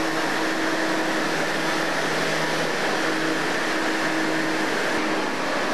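Steady hum and rush of a New York City subway train standing at a station platform with its doors open, with a low steady tone running through it.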